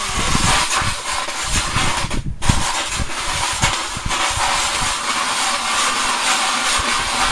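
Ice auger boring a hole through lake ice: a steady scraping grind of the blades cutting the ice, with irregular low knocks and a brief break about two seconds in.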